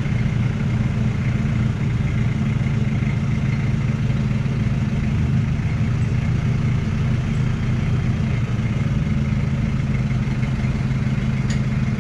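Forklift engine running steadily as the mast lifts: a constant low hum with a faint, steady high whine above it.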